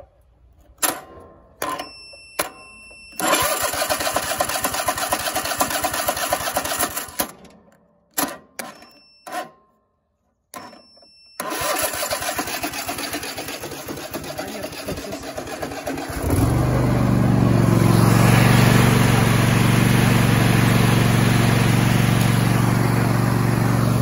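Cub Cadet riding mower's Kohler engine being started on a jump from jumper cables: a few clicks, then the starter cranks it for several seconds in two spells, and about two-thirds of the way through the engine catches and runs steadily and louder.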